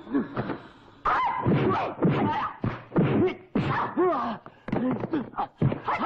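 Kung fu film fight sound effects: a rapid run of punch and kick impact whacks, about one or two a second, each with a short shouted yell from the fighters. It starts about a second in.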